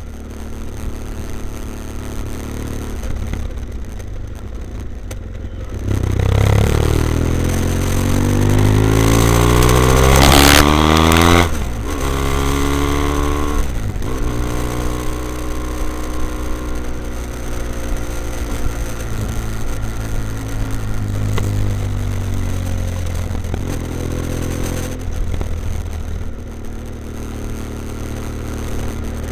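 BMW F800ST's parallel-twin engine through a Blue Flame twin-port exhaust with both baffles in, heard from the bike while riding. The revs climb under acceleration from about six seconds in, the loudest part, drop sharply near eleven seconds as the throttle closes, climb briefly again, then settle into steady cruising with another rise near the end.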